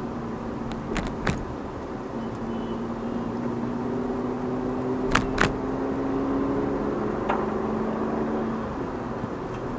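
Car driving along a road, heard from inside the cabin: steady road and tyre noise with a faint engine hum. Sharp knocks come in quick pairs about a second in and about five seconds in, with a single one a couple of seconds later, like the car jolting over bumps or joints in the road surface.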